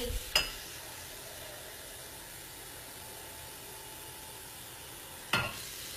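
Kitchen tap running steadily while two cups of water are drawn, with a sharp click just after the start and a knock about five seconds in.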